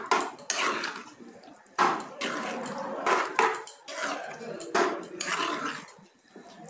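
A metal spoon scraping and knocking against a stainless steel pan as thick, soft khichuri of rice, lentils and vegetables is stirred and mixed, in a series of irregular strokes.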